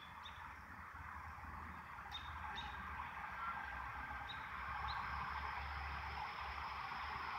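Outdoor ambience: a steady rushing noise that slowly grows louder, with a low rumble underneath and a handful of short, high bird chirps.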